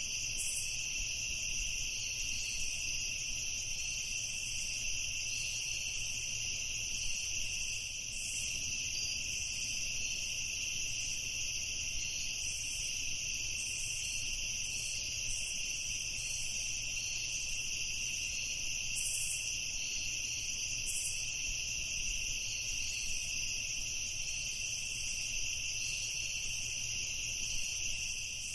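Crickets trilling in a steady, unbroken night chorus, high-pitched, with a few brief higher chirps over it now and then.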